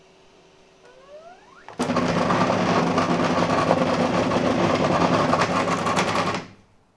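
JG Aurora 3D printer's stepper motors spinning up with a rising whine about a second in, then running loudly with a steady buzzing whir and fine rattle for about four and a half seconds before stopping abruptly.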